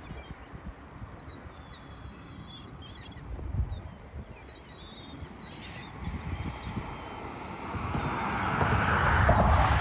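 Small birds chirping and twittering in quick high notes for the first six seconds or so, over low wind rumble on the microphone. From about eight seconds in a broad rushing noise swells up and is loudest near the end.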